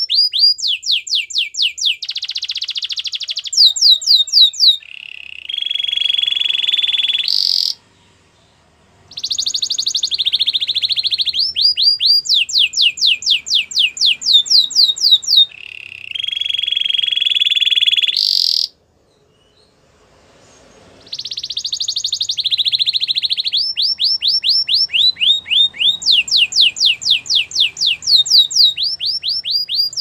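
Canary singing: phrases of fast rolled trills made of rapidly repeated down-slurred notes, alternating with buzzy held notes. The song breaks off twice, for a second or two each time.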